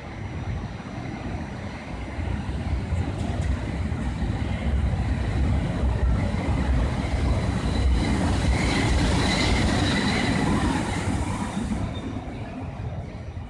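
PKP EP07 electric locomotive and its coaches rolling slowly past at close range, a low rumble of wheels and running gear that builds, is loudest as the locomotive passes, and fades toward the end. Faint wavering squeal from the wheels as it goes by.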